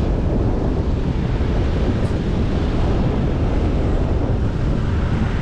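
Wind buffeting an action camera's microphone on a moving scooter, a steady low rumble with the scooter's ride underneath.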